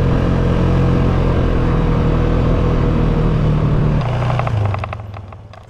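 ATV engine running steadily under throttle while riding. About four seconds in, the throttle is let off and the engine drops down toward idle as the quad slows.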